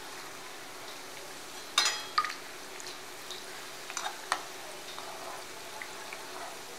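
Samosas deep-frying in oil in a steel kadhai on low heat: a steady, gentle sizzle. A few sharp metal clinks from the slotted spoon against the pan, twice about two seconds in and twice about four seconds in.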